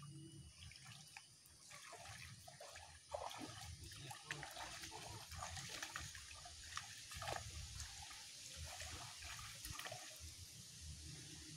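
Shallow muddy water splashing and trickling as a person wades and scoops with a hand net and a small bucket. Irregular splashes and drips, busier from about three seconds in.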